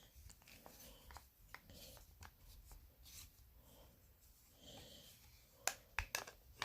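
Glock FM81 field knife being worked out of its plastic sheath: faint handling rustles and soft ticks, then a few sharp plastic clicks near the end.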